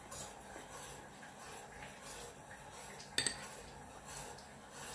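A metal spoon scraping thick semolina pudding off a serving spoon into ramekins, with faint light clinks and one sharper clink about three seconds in.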